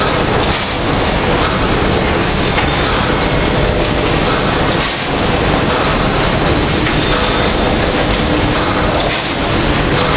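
Steady, loud din of bagging machinery running on a factory floor, with short hissing bursts about every four seconds.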